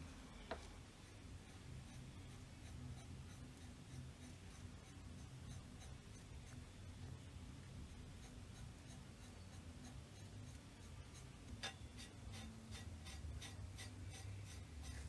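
Faint scratching and rubbing from hand work on a small object, with a quick run of light clicks near the end.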